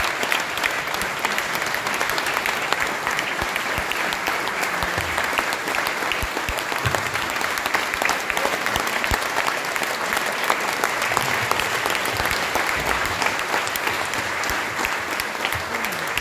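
Audience applauding steadily: many hands clapping at once in a sustained ovation.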